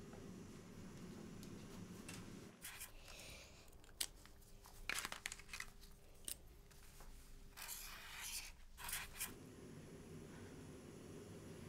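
Crayon scribbling on paper in several short, scratchy strokes, the strongest about five and eight seconds in, with a small tap near four seconds.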